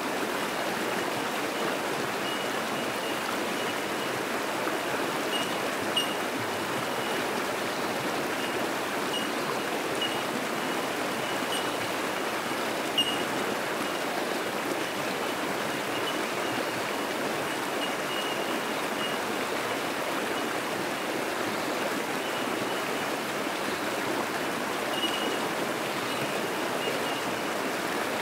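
Fast-flowing creek rushing steadily over rocks and rapids. Over it, bell miners (bellbirds) give short, high single notes at one pitch now and then.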